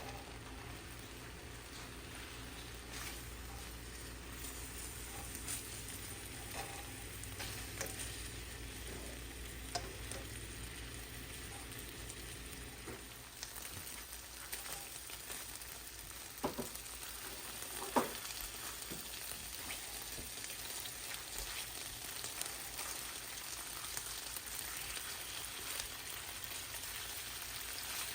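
Chicken breasts frying in oil in a pan, a steady sizzle and crackle. A couple of sharp clicks sound about two-thirds of the way through.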